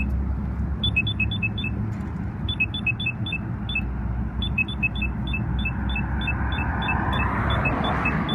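Polara Bulldog crosswalk push-button signal sounding a rapid run of short high beeps that alternate between two pitches, settling to about four a second. Low traffic rumble runs underneath, and a vehicle passes near the end.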